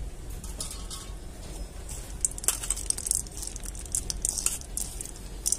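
Faint, irregular crackling and rustling over a low steady rumble.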